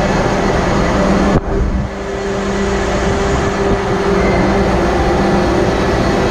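Steady, loud engine-room machinery noise from a Wärtsilä seven-cylinder RT-flex82T two-stroke main engine running at sea, with a steady low hum and a higher hum over the din. About a second and a half in, the noise drops abruptly and builds back up over the next couple of seconds.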